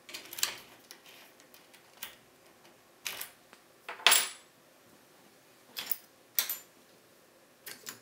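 A key drawn out of a BKS PZ 88 pin-tumbler cylinder with a short clicking rattle. Then come separate metallic clinks about a second apart as keys and small picking tools are handled. The loudest clink, about four seconds in, rings briefly.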